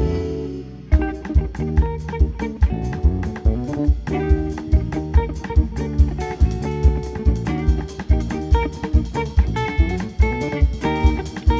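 Live instrumental band music: guitar, bass guitar and drum kit playing together, with a steady beat from the kick drum.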